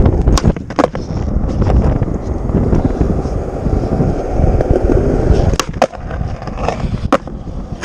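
Skateboard wheels rolling with a steady rumble. Sharp clacks of a kickflip's pop and landing come in the first second, then more clacks about five to seven seconds in as the trucks hit and leave a ledge in a 50-50 grind.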